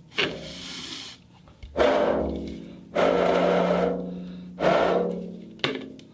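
Ceramic balls clattering in about five separate runs, each starting with a sharp clack and then ringing and rattling on for a second or so before fading.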